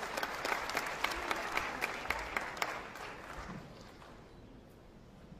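Audience applauding, the clapping fading out about three seconds in and leaving quiet hall tone.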